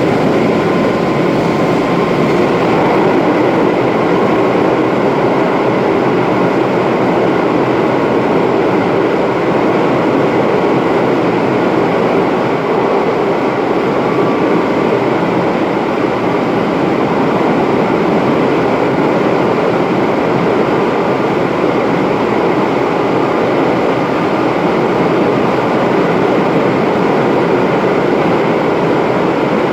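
Running noise of an Izu Kyuko 2100 series electric train with Toyo-made traction equipment: steady rumble of the motors and wheels on the rails at cruising speed, with a faint whine in the first few seconds.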